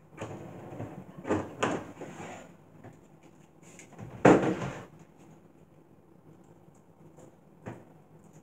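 Containers and food items being handled and taken out of a refrigerator: rustling and clunks, two sharp knocks early on and the loudest clunk about four seconds in, then a small knock near the end.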